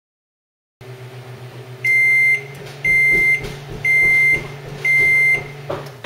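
GE microwave oven humming as it runs, then beeping four times, about once a second, as it signals the end of its cooking cycle. The hum starts about a second in, after a silent start.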